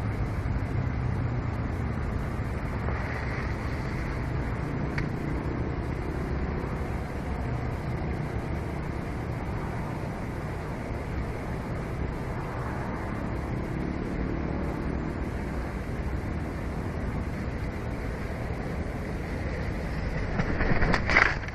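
Steady low rumbling outdoor background noise picked up by the nest camera's microphone, with one brief louder noise near the end.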